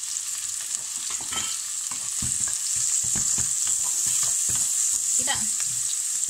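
Chopped onions sizzling in hot oil in a kadai while a wooden spatula stirs them, scraping and knocking against the pan again and again from about two seconds in. This is the sauté stage, the onions cooking down towards translucent.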